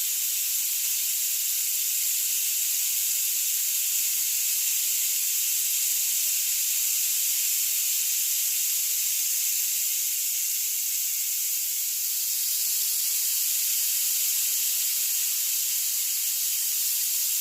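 A 120 cm rain stick pouring: a steady, high hiss of its filling trickling down inside the tube, dipping slightly about twelve seconds in.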